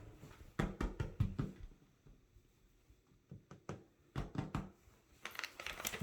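Several clusters of soft knocks and taps with a little rustling, separated by quiet gaps: handling noise in a small room.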